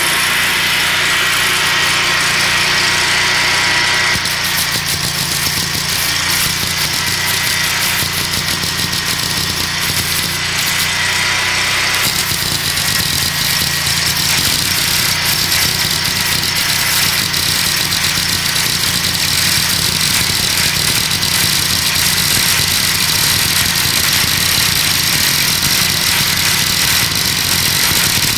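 Predator generator engine running steadily under load on wood gas. From about four seconds in, the crackling hiss of a wire-feed welder's arc joins it as a bead is laid on steel plate.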